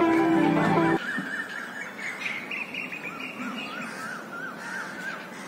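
Plucked-string background music stops about a second in. Then a bird sings a long run of short rising-and-falling chirps over steady outdoor hiss.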